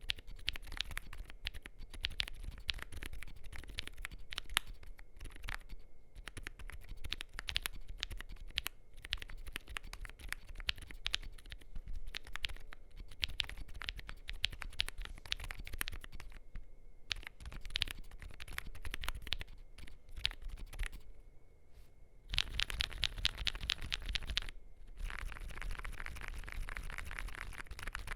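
Typing on a MonsGeek M1W mechanical keyboard with lubed, filmed WUQUE Studio silent tactile switches on a polycarbonate plate: a steady run of muted keystrokes. There are brief pauses about 16 and 21 seconds in, then a faster, denser flurry of keystrokes near the end.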